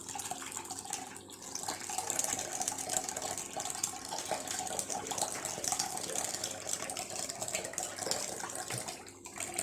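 Freshly blended apple and lemon juice being poured through a strainer, liquid running and splashing steadily into the container, with a short break about a second in.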